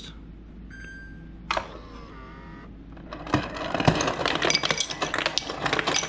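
LG French-door refrigerator's door ice dispenser set to cubed: a short beep from the touch pad, a brief motor hum from the dispenser, then ice cubes clattering into a glass for about three seconds.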